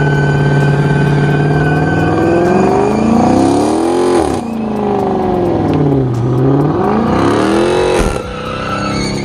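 Dodge Charger R/T's HEMI V8 doing a burnout with the rear tyres spinning on the pavement. It is held steady at high revs at first, then revved up and back down twice, peaking about four seconds in and again near the end, with a hiss of spinning tyres at each peak.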